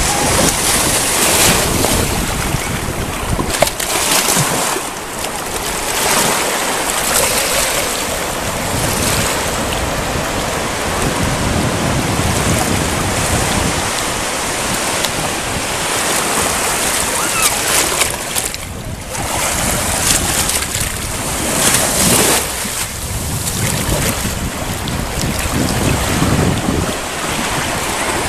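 Ocean surf washing up a sandy beach, waves breaking and running in with a steady rush that swells and eases every few seconds, with wind buffeting the microphone.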